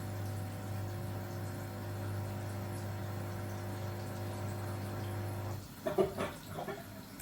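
Steady low electrical hum from kitchen equipment that cuts off suddenly about five and a half seconds in, followed by a few short knocks and clatter of things being handled.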